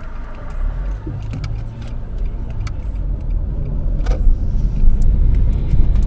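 Car being driven: low engine and road rumble heard inside the cabin, growing louder toward the end, with a few light clicks.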